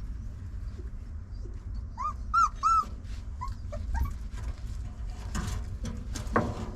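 Restless puppies whining: three short high-pitched arched whines about two seconds in, followed by a few fainter rising squeaks, with a couple of knocks near the end.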